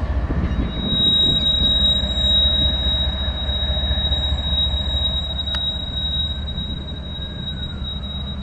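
CSX freight train rolling past with a low steady rumble of engine and wheels. A high, steady wheel squeal sets in about a second in and holds on. One sharp click comes a little past halfway.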